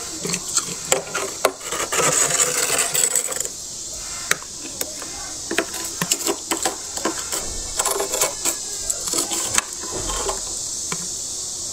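Frost being scraped and chipped off the inside walls of a freezer with a utensil: a run of gritty scrapes and sharp clicks, with a longer continuous scrape about two to three and a half seconds in.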